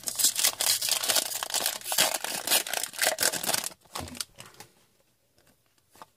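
Foil wrapper of a hockey card pack being torn open and crinkled for about three and a half seconds, then a few faint clicks.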